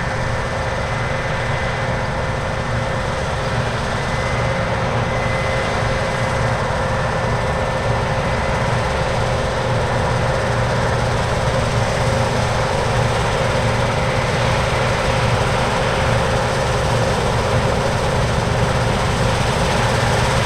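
Heavy harvest machinery running steadily: a low diesel drone with steady whining tones on top, growing slightly louder.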